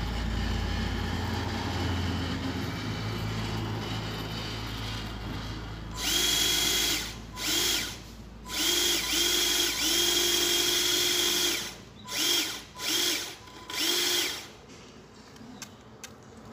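Small electric motor and hydraulic pump of a homemade 1/12 RC hydraulic excavator whining in about seven bursts of differing length, one about two seconds long, as the machine is worked from the transmitter. Before the bursts, a low steady hum fades away.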